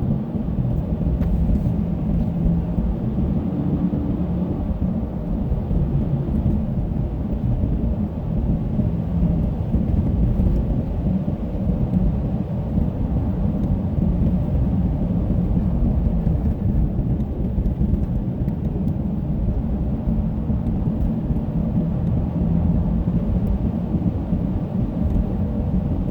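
Steady low rumble of road noise heard inside a moving car's cabin, from studded winter tires rolling on a snow-covered road; the tires make it a little loud.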